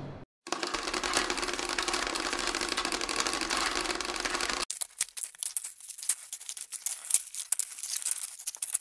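Steady rushing noise for about four seconds, then an abrupt cut to faint, irregular crackling and clicking.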